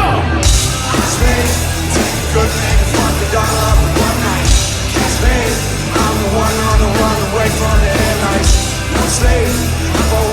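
Live rock band playing loudly, with a steady pounding beat; the full band, cymbals and guitars included, comes in about half a second in.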